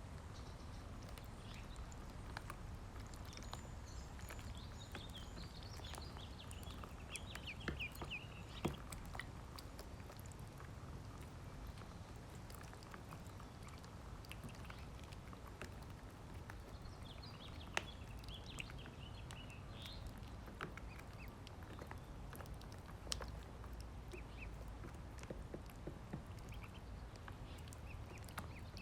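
Ducklings peeping in high, thin chirps, in two spells: one a few seconds in and another past the middle. Scattered sharp taps and clicks run under them.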